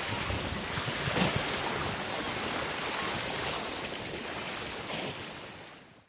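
Sea waves washing steadily, a continuous surf noise that fades out over the last second.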